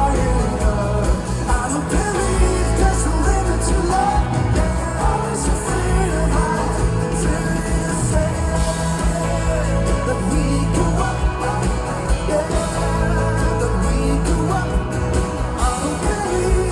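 Folk-rock band playing live, a full band with a steady low bass and a voice singing over it.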